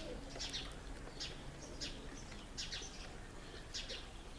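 Birds chirping: short, high calls repeating irregularly, about one or two a second, over a faint background hiss.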